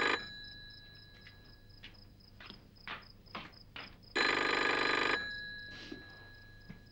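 Rotary-dial desk telephone's bell ringing: the tail of one ring right at the start, then a full ring of about a second about four seconds in. A few soft knocks are heard between the rings.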